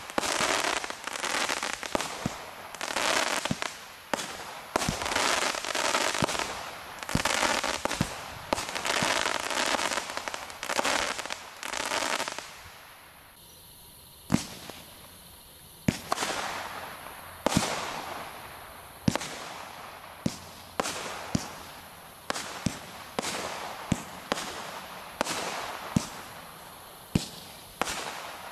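Shogun small multishot firework cakes firing. The first cake (Twilight Glitter Tail to Silver Time Rain) fires shots in quick succession, each followed by a long rush of noise from its break, and stops about twelve seconds in. After a short lull the next cake (Silver Tail to Yellow/Purple/Green Bombard) begins, firing single sharp shots about a second apart, each trailing off in a fading hiss.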